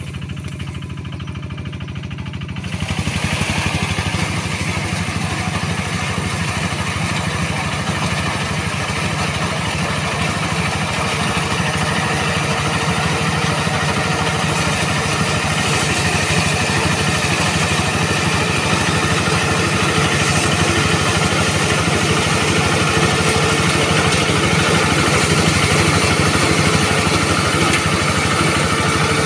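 Quick QH-11 combine harvester running steadily at work, getting louder about three seconds in.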